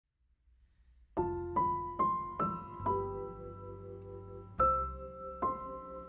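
Background piano music: a slow melody of single struck notes that ring and fade, starting about a second in after near silence.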